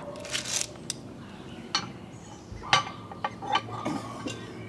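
Steel Lodge Dutch oven lid lifter and lid stand being picked up and handled: a handful of sharp metal clinks and clanks as it knocks against the insulated cookie sheet and other metal, the loudest a little past the middle.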